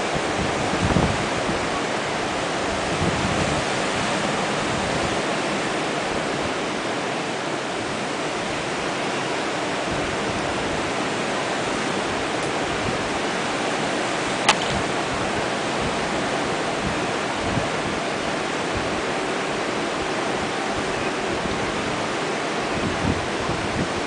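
Ocean surf breaking along the beach, heard from high above as a steady, even wash of noise, with occasional low wind bumps on the microphone and a single sharp click about halfway through.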